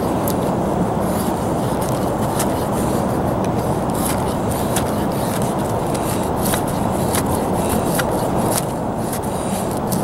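Knife blade scraping down a dry split wood stick, shaving curls for a feather stick, in irregular strokes about once a second. A steady low rushing noise runs loud underneath.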